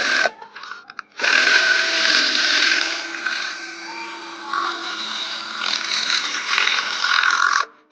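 A small electric motor, like a handheld power tool, runs steadily under load for about six seconds, starting about a second in and stopping suddenly near the end.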